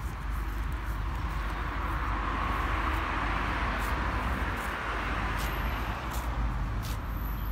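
Steady outdoor background of distant road traffic, a low rumble with a hiss that swells a little two to three seconds in. Faint scattered clicks run through the second half as a Hereford cow crops grass.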